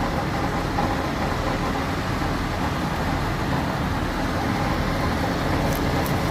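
An engine running steadily at an even pitch, a continuous mechanical drone.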